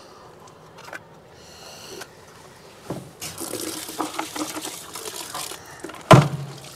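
Water running from a faucet into a plastic bucket for a couple of seconds, then a single loud thump near the end.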